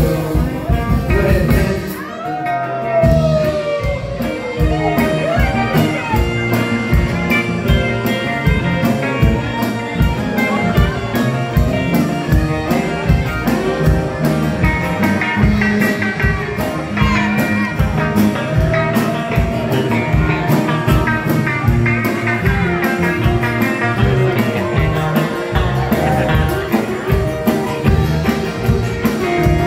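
Live band playing an instrumental stretch of a blues-country song: acoustic guitar strummed, fiddle playing, and a drum kit keeping a steady beat.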